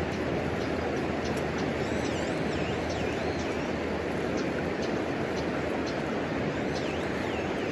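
Wood burning in a homemade wood stove, crackling with scattered small sharp pops over a steady rushing background. A bird chirps briefly a few times, about two to three seconds in and again near the end.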